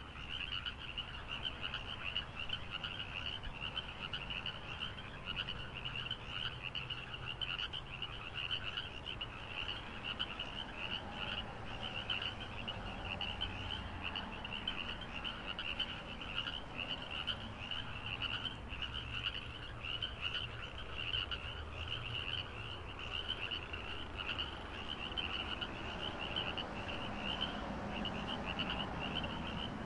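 A dense chorus of many small animals calling: a fast, high-pitched pulsing trill that never stops, over a low steady rumble.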